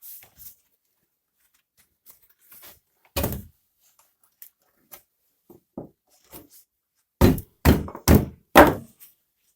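Hammer blows tapping a motorcycle tire's bead down onto the rim. One dull thud comes about three seconds in, then four quick thuds about half a second apart near the end, with small knocks between.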